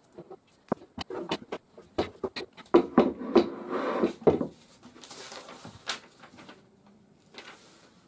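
Plastic and metal clicks and knocks of an IKEA office chair's star base and casters being handled on a plywood bench, with a dense clatter about three seconds in as the base is turned over onto its casters. Later comes paper rustling as the instruction sheet is picked up.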